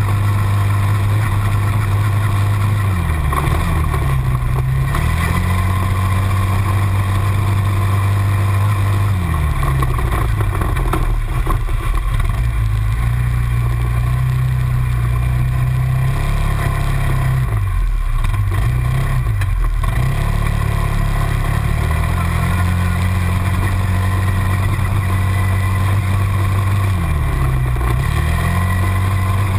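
Quad bike engines, a Suzuki LTZ 400 and the TGB Target 325 carrying the camera, running steadily. Their pitch drops and climbs again about four times as the throttle is eased off and reopened.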